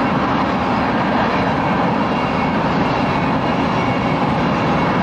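Railroad tank cars of an oil train rolling past at close range, a steady noise of steel wheels running on the rails.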